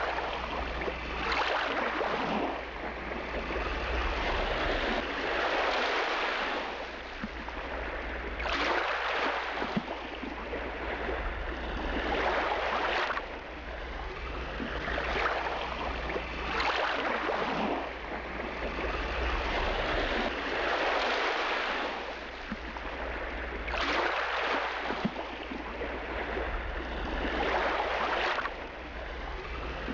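River water sloshing and washing against the hull of a wooden passenger boat, swelling in surges every three to four seconds, over a steady low hum.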